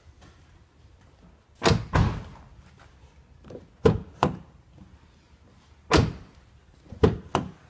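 Nissan Murano Z51 front door worked by its outside handle: a series of sharp clacks and thunks, mostly in pairs about a third of a second apart, as the handle is pulled, the latch releases and the door is shut again. The repaired handle cable now opens the door.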